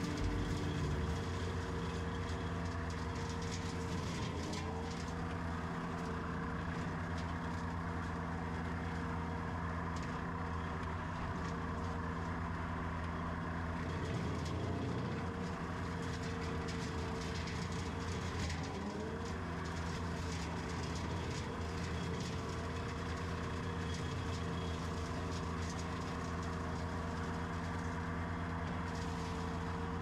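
Compact track loader's engine running steadily at working speed, driving a hydraulic brush cutter attachment, with an even hum that wavers briefly twice as the load changes.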